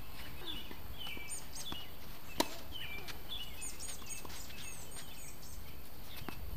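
A tennis ball struck by a racket: one sharp pop about two and a half seconds in, with fainter ball hits near the end. Birds chirp in short repeated notes throughout, over a steady outdoor background hush.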